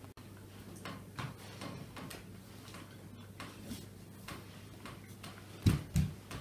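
Scattered light clicks of china teacups, saucers and plates being handled on a table, with two dull thumps close together near the end.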